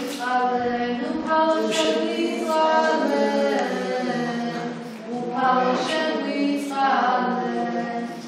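Unaccompanied choir singing slow, sustained chant, several voices in harmony holding long notes, with a short break between phrases about five seconds in.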